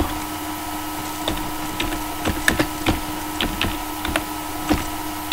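Computer keyboard keystrokes typed slowly, one key at a time, as irregular single clicks, about a dozen in all, over a steady hum.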